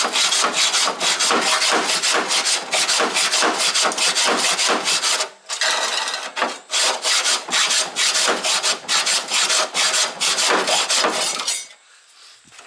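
Hacksaw cutting through the rusty sheet steel of a Holden HK–HT–HG front mudguard, in quick rasping back-and-forth strokes, several a second. The strokes break off briefly about five seconds in, then run on and stop about a second before the end.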